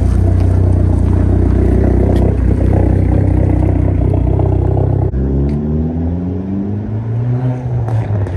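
A car engine running loud and steady at a held speed, then about five seconds in the sound drops suddenly and the engine note climbs in pitch twice, as if revving up.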